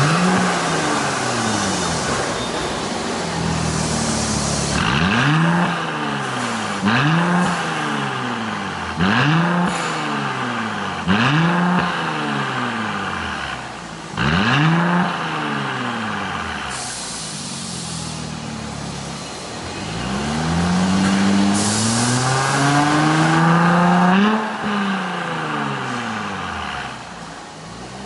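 Mercedes-Benz C400's twin-turbo V6 free-revving at standstill through an Fi Exhaust valved exhaust: a series of short throttle blips, each rising and falling in pitch, with the exhaust valves closed, then with the valves opened about halfway through, another blip and a longer rev held for a few seconds before it drops back.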